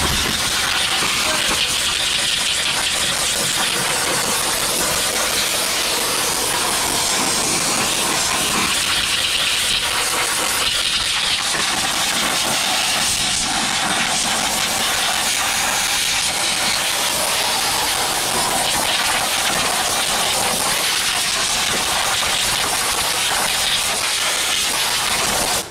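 Compressed-air solvent spray gun hissing steadily as it blasts solvent and air over an alloy wheel and its lug nuts to strip off an oily film. The hiss cuts off abruptly at the end.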